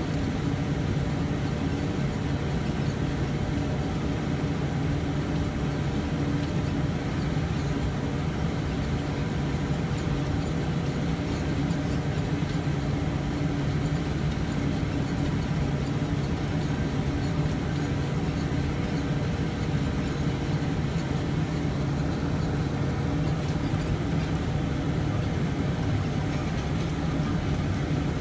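Tractor engine running steadily under load, driving a New Holland round baler through its PTO shaft as the pickup gathers a windrow of hay into the bale chamber: an even mechanical hum and rattle with no letup.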